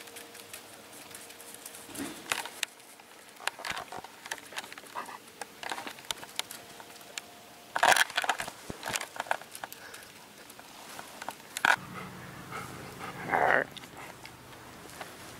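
Lab-shepherd mix dog panting close to the microphone, with scattered clicks and two louder short bursts, one about halfway and one near the end.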